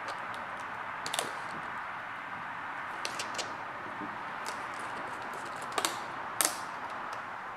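Vinyl tint film being pressed down and smoothed onto a plastic bumper reflector by hand, giving a few scattered light clicks and crackles over a steady hiss.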